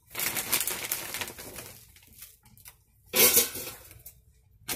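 Frozen curly fries poured from their plastic bag into an air fryer basket, rattling against the basket with bag crinkling, and a louder burst a little over three seconds in.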